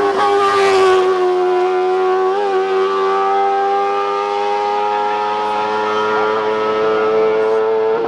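Racing buggy's engine held at high revs, a steady high-pitched note that barely changes, with a brief dip about two and a half seconds in.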